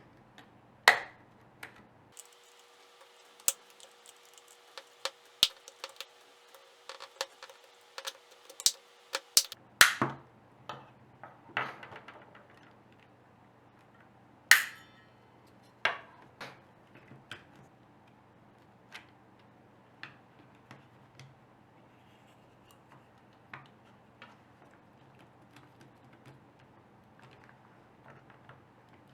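Irregular small clicks and taps of hard plastic parts being handled while a remote control is taken apart. A few sharper knocks ring briefly.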